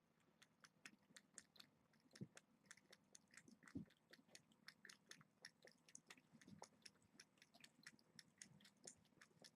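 Faint, irregular crunchy clicks of a cat chewing, several a second.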